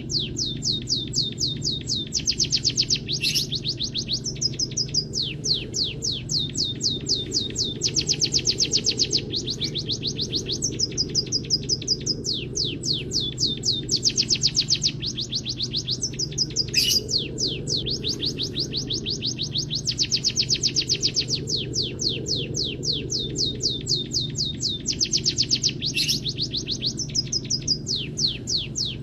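Munia song (peking and emprit kaji) laced with canary-style phrases, as played in a masteran training recording: fast, continuous trills of rapidly repeated high notes, with phrases that recur every several seconds. A steady low hum runs underneath.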